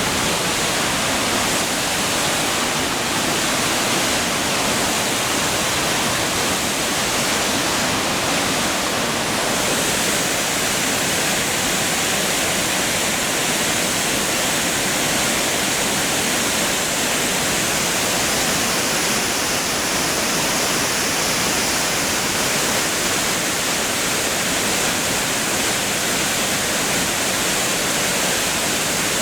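Waterfall pouring into a mountain stream: a steady, loud rush of falling water with no breaks.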